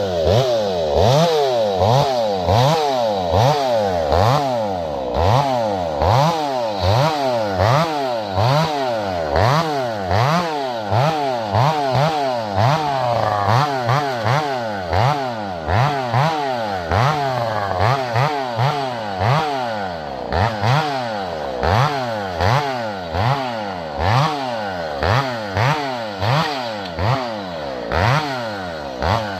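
Two-stroke chainsaw limbing a felled balsam fir: the engine is revved up and let back down about once a second, its pitch rising and falling with each rev, as the branches are cut off one after another along the trunk.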